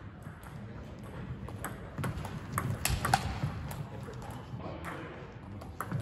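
Table tennis rally: the celluloid/plastic ball clicking sharply off the rackets and the table at an uneven rhythm, busiest about two to three seconds in.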